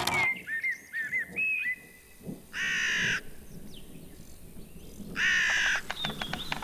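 Cartoon creature sound effects: thin whistled chirps that slide up and down, then two short, harsh caw-like calls about two and a half seconds apart, with quick clicks near the end.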